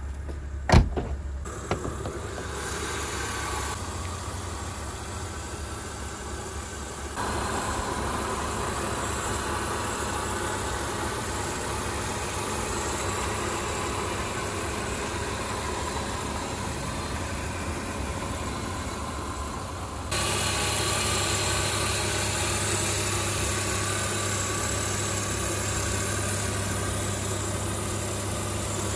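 1998 BMW 328is (E36) straight-six engine idling steadily, after a sharp knock about a second in. The idle gets louder in two sudden steps, near seven seconds and near twenty.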